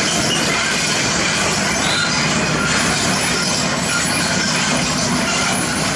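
Heavy road-construction machinery running: a loud, steady mechanical rumble and clatter, with a brief high metallic squeal about two seconds in.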